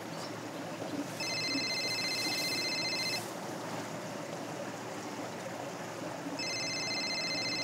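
Mobile phone ringtone ringing twice. Each ring is a high electronic tone about two seconds long, with roughly three seconds between them.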